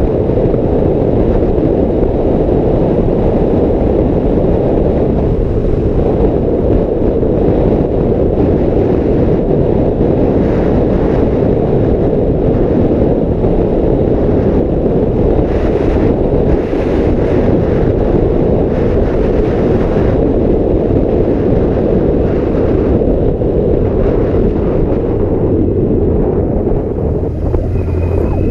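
Steady wind rushing over the action camera's microphone on a moving 1986 Yamaha Maxim X motorcycle, with the bike's running noise underneath. Near the end a low steady hum comes through.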